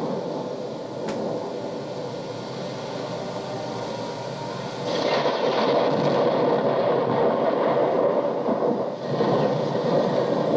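Recorded train sound effect played back from a stereo cassette: a steady rumbling noise that grows louder about halfway through and dips briefly near the end, with tape hiss.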